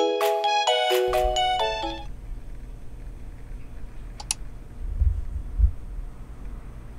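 Short chime-like intro jingle, a quick melody of bell or mallet notes, ending about two seconds in. Then quiet room tone with a low rumble, a brief high chirp about four seconds in and two soft low thumps soon after.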